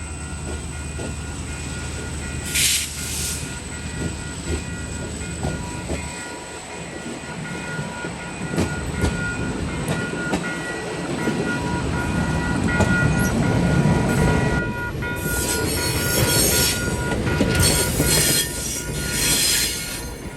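Diesel-hauled Cuyahoga Valley Scenic Railroad train passing close by. A low rumble of locomotive and wheels builds through the middle and stays loud, under steady ringing tones. Short, loud, high-pitched bursts come about three seconds in and again several times from about fifteen seconds on.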